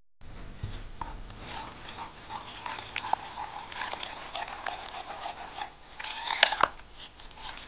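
Silicone spatula stirring a thick red-pepper paste in a glass bowl: sticky, wet squelching and scraping with many small clicks. There are a couple of sharper taps against the bowl near the end.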